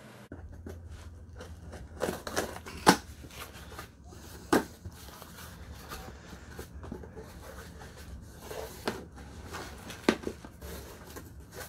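A cardboard shipping box being opened by hand and its packing handled: rustling and scraping of cardboard and plastic air-pillow packing, with several sharp knocks, the loudest about three seconds in.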